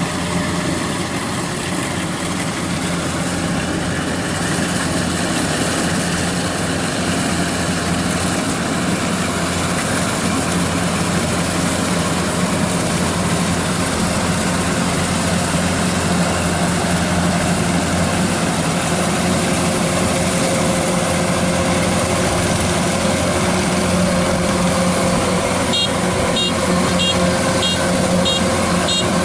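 Kubota DC-93 combine harvester running steadily under load while cutting rice. Near the end, a run of short, high beeps sounds several times over the engine.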